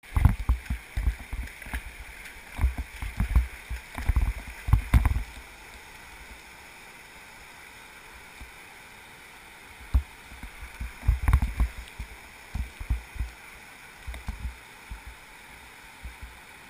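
Whitewater river rapids rushing steadily. Irregular low bumps and rumbles on the microphone come through in the first five seconds and again from about ten to fifteen seconds in.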